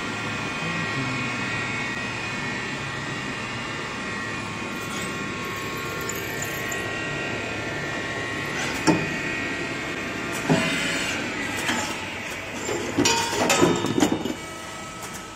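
CNC copper tube spinning and flow-forming machine running, a steady mechanical hum with several high whining tones. A sharp clack comes about nine seconds in and another a second and a half later, then a run of clattering metallic knocks near the end.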